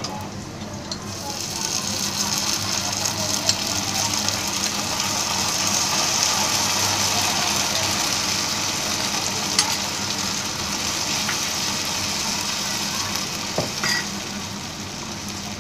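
Arrowroot slurry sizzling as it is poured into a hot kadai of fried onions and garlic and stirred in with a spatula. The hiss swells over the first few seconds, then eases, with a few sharp clicks of the spatula against the pan.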